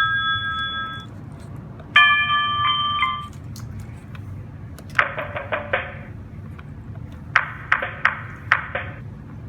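Cisco IP Phone 7911G playing its ringtones through its speaker: a tone dies away at the start, a short chime of a few stacked notes sounds about two seconds in, then quick runs of bell-like strikes come around five seconds in and again near the end.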